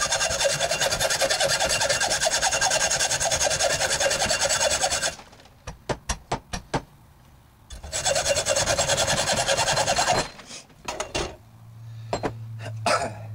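Hacksaw cutting through a steel 12-gauge shotgun barrel in rapid back-and-forth strokes. The sawing stops for a few seconds with a few light knocks, saws again for about two seconds, and then several knocks follow as the saw is set down.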